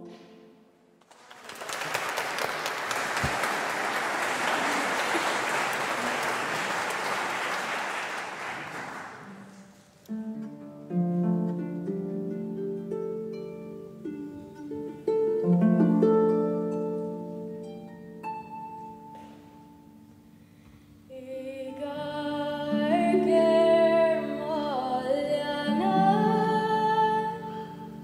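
Audience applause for several seconds, dying away. About ten seconds in, instrumental music starts with held notes. A solo singing voice comes in about two-thirds of the way through.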